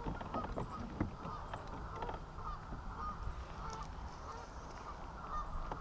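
Geese honking, many short calls repeating and overlapping, with a low rumble underneath.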